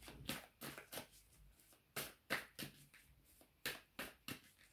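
Tarot cards being shuffled by hand: a run of short, soft swishes and slaps at an irregular two or three a second.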